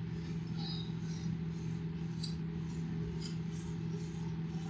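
Steady low electrical hum and background hiss of an old lecture tape recording, with faint high-pitched chirps repeating about three times a second.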